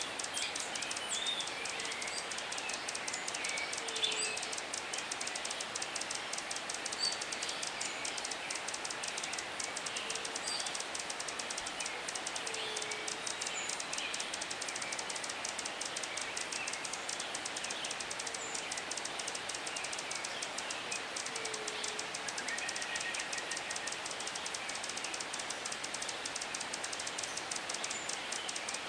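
Forest ambience: scattered short chirps of several birds over a fine, steady high buzz of insects, with a short low call repeated every few seconds.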